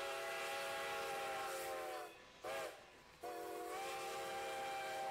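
Multi-toned train whistle sounding a chord: a long blast, a short toot, then another long blast, each sliding up slightly in pitch as it starts.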